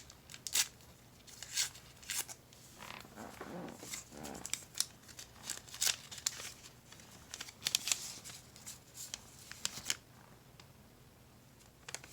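Toy packaging crinkling and rustling as cards are pulled out of it, in scattered sharp crackles that die away about ten seconds in.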